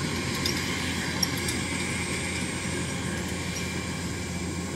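Kubota DC-105 combine harvester's diesel engine running steadily as the machine turns in the rice field.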